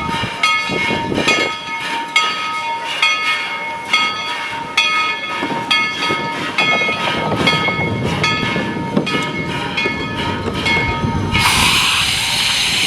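Train rolling over rail joints with a regular clicking, a steady high tone running under it. Near the end a loud hiss of steam starts.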